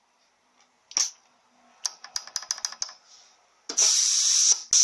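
Compressed air hissing through a 4L60E transmission shift solenoid under test, with a quick run of clicks as it is switched on and off, then a longer hiss of about a second near the end. The mechanic finds this solenoid leaking slightly and binding.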